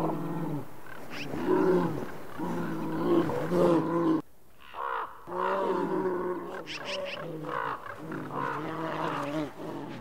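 Grizzly bears growling and roaring in a string of long, low calls: threat calls in a standoff over a carcass, with a short break about four seconds in. Ravens croak briefly near the start and again around two thirds of the way through.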